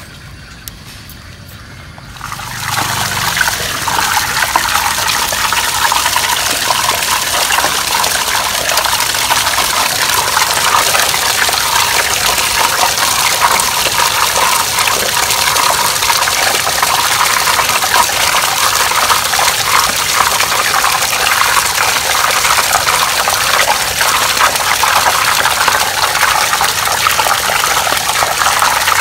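A strong jet of water from a pipe gushing into a full plastic basin and splashing over its rim as a pork trotter is rinsed in it. It starts suddenly about two seconds in and then runs steadily.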